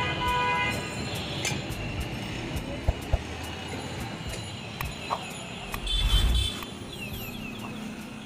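Busy street traffic ambience, with vehicles and rickshaws going by, after background music fades out in the first second. Two sharp clicks come about three seconds in, and a brief loud rush about six seconds in.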